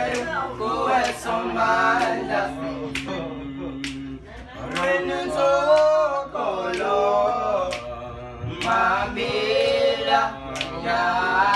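A small group of young men singing a cappella in close harmony, low voices holding long steady notes under the moving melody, with sharp clicks keeping time.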